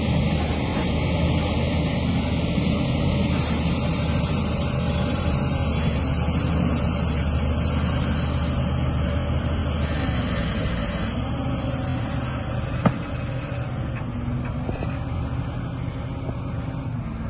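John Deere tractor engine running steadily under load while pulling an earthmoving scraper through dirt. It gets somewhat quieter in the second half as the rig moves away, and there is a single sharp click near the end.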